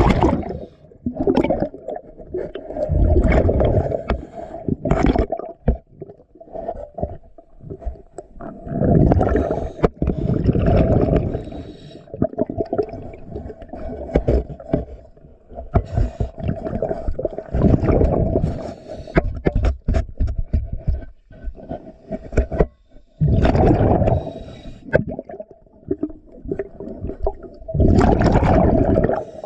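A diver breathing underwater through a regulator: exhaled bubbles gurgling in bursts of two to three seconds, about every six seconds, over a steady hum.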